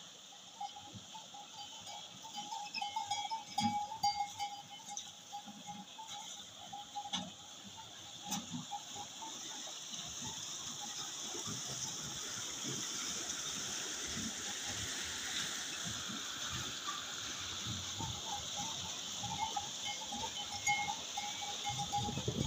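Bull-driven Persian wheel turning, its metal buckets tipping water into the channel. The steady rush of pouring water grows louder about halfway through, over knocks of the buckets and a thin recurring squeak.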